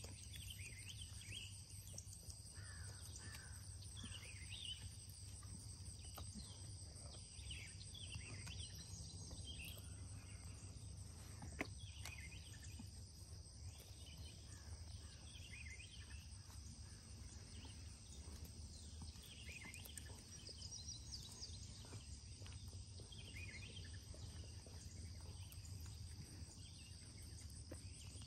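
Faint, steady chorus of insects singing in high unbroken drones, with short bird chirps repeating about once a second over a low rumble. One sharp click a little before halfway.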